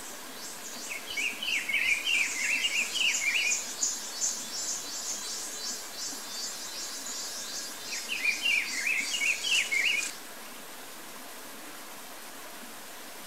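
Bird song: a quick jumble of slurred whistled notes sung twice, several seconds apart, over a fast, very high chirping that runs with it. All of it cuts off suddenly about ten seconds in, leaving a steady background hiss.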